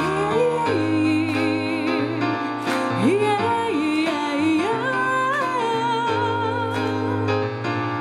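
Live music: a woman singing a sustained, sliding melody with vibrato in an Okinawan folk-style song, over instrumental accompaniment.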